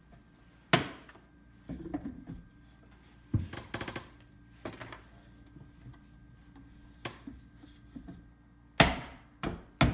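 Plastic front cover of a Nissan EV charging station being pressed and fitted onto its wall unit: a string of sharp clicks and knocks at irregular intervals, with a quick rattle of clicks around the middle and the loudest knock near the end.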